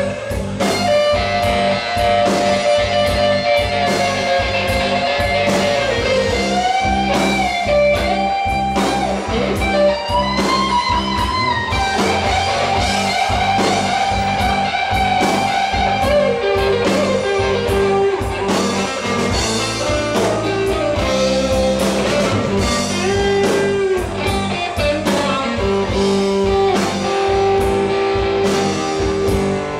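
Live blues-rock band: a Stratocaster-style electric guitar plays a lead line of held, bent notes over bass and drums, with no vocals.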